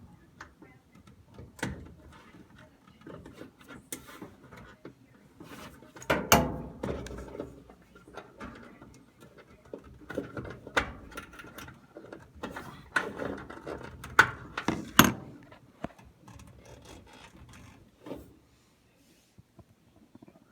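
Irregular clicks and knocks of hands working inside an electric dryer's cabinet, pulling the wire connectors off the thermal fuse, with a few sharper knocks about six seconds in and again near the middle.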